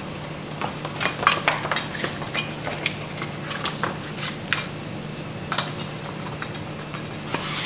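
BMX tire being handled and its bead worked onto a tubeless rim by hand: irregular light clicks and taps, over a steady low hum.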